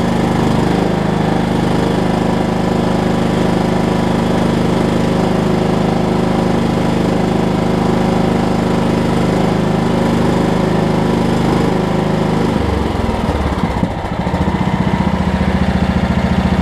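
Kohler Command single-cylinder engine on a Craftsman riding mower running steadily, free to turn now that the wrongly fitted deck belt that had locked it is off the pulley. About twelve seconds in its speed changes and it settles into a slower, lower idle.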